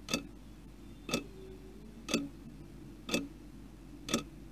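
A clock ticking steadily, one tick a second, five ticks in all.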